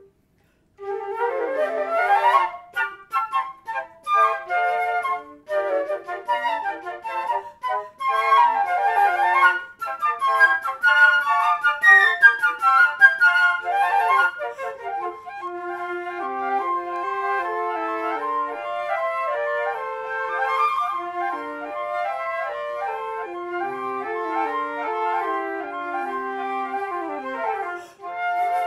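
Flute quartet playing a fast, energetic piece: after a brief gap, short, sharply attacked notes and quick runs, which give way about fifteen seconds in to smoother, overlapping sustained lines.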